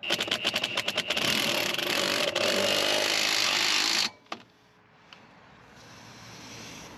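Power wrench with an 18 mm socket tightening a brake caliper bracket bolt: about a second of rapid clicking, then a steady mechanical rattle that stops abruptly about four seconds in, followed by one light click.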